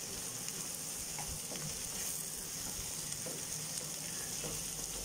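Eggs and chopped vegetables sizzling in oil as they scramble in a pan, stirred with a wooden spatula: a steady hiss with faint scrapes and taps of the spatula.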